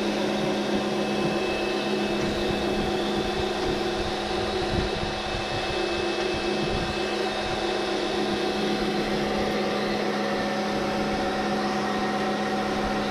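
Pressure washer running steadily, its motor and pump giving a constant hum under the hiss of the water jet blasting mud off stone paving.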